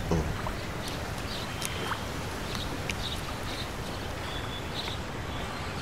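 Steady outdoor ambience by a lake, with a few faint, short high chirps scattered through it.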